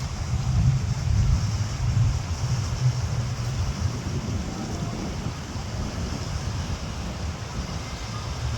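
Wind buffeting the microphone: a gusty low rumble, strongest in the first few seconds and then easing a little.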